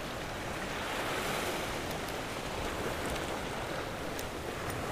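Sea surf washing and foaming over the rocks just below, a steady rushing of breaking waves.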